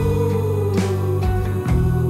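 Background music: held low notes over a steady beat.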